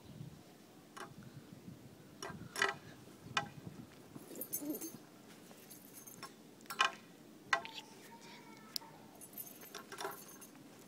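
Metal Beyblade spinning tops clashing and rattling in their battle stadium: scattered sharp metallic clicks and clinks, with two short jingling rattles.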